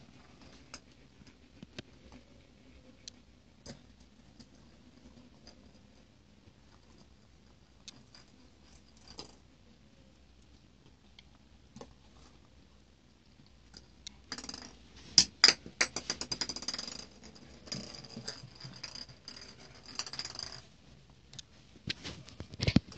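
Dogs' fur, paws and mouths rubbing, scratching and knocking right against the phone's microphone as a German shepherd puppy and a bigger dog play over a ball. For the first fourteen seconds there are only faint scattered clicks; then a burst of loud scraping and clattering lasts about six seconds, and a single heavy thump comes near the end.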